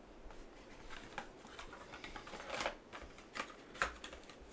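Trading cards and a black card envelope being handled: soft rustling and sliding of card stock, with a few light clicks in the second half.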